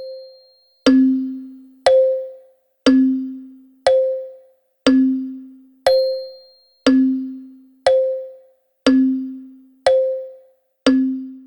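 Wall clock ticking once a second in an alternating tick-tock, each a sharp click with a short ringing tone, one lower and the next higher.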